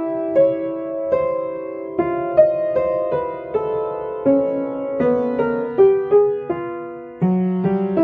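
Background piano music: a slow, gentle melody of single notes and chords, each note struck and then fading.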